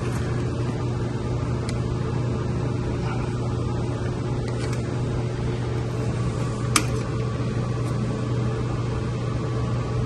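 Steady low machine-room hum with fainter higher tones above it, and a single sharp click about seven seconds in.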